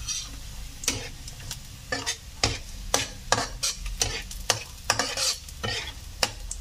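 A spatula stirring and scraping in a metal wok, striking the pan in quick irregular strokes about three a second, over the sizzle of onion, garlic and ginger sautéing in oil.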